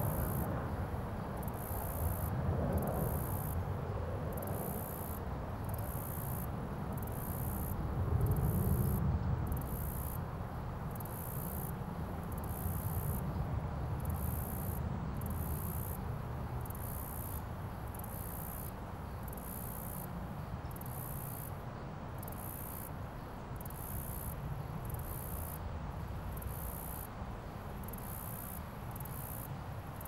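Cricket chirping: short, very high-pitched chirps repeating steadily a little over once a second. A low rumble runs underneath, swelling about eight seconds in.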